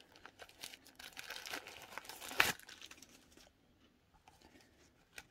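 Paper crinkling and tearing as paper stuck in the zipper of a leather wristlet is worked free, with one sharp crackle about two and a half seconds in. It goes quieter after about three and a half seconds.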